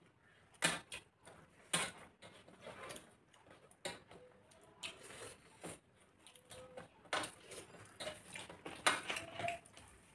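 Hand-eating sounds: fingers mixing rice and curry against metal plates, with irregular clicks and smacks of chewing.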